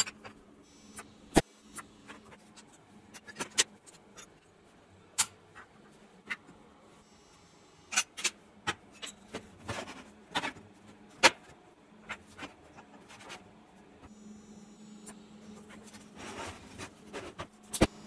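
Steel parts and tools being handled and set down on a steel welding table: scattered sharp clicks and knocks at irregular intervals, over a faint steady hum.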